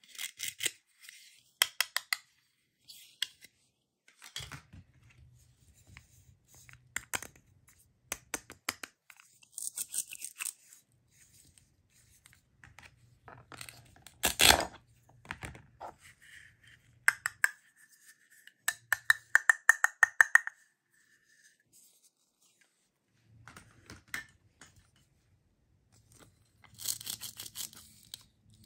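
Toy plastic fruits and vegetables being handled and cut with a plastic knife on a plastic cutting board: scattered sharp plastic clicks and knocks, the loudest about halfway through, and a few rasping rips of the Velcro pads that hold the toy halves together as they are pulled apart.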